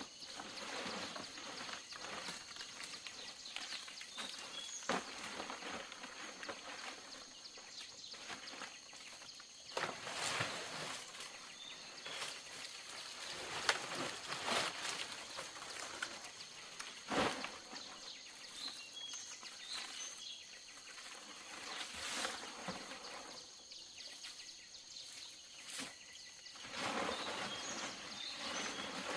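Outdoor ambience with a steady high insect drone and a few short bird chirps, broken by scattered knocks and rustling from handwork, the sharpest knocks about halfway through.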